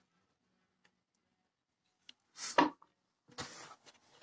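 Handling noises: near-quiet at first, then two short rustles and a sharp knock near the end as the plastic visor part and the phone are moved.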